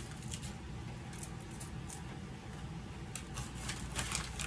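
Soft, scattered patters and rustles as brown sugar is sprinkled by hand over seasoned ribs in a disposable aluminium foil pan, with a few more ticks near the end, over a low steady hum.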